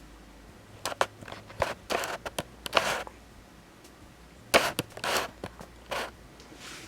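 Handling noises from a bottle of CLP gun cleaner-lubricant and a cotton swab: irregular small clicks and short rustles as the lubricant is put on the swab, in two clusters with a pause of about a second between them.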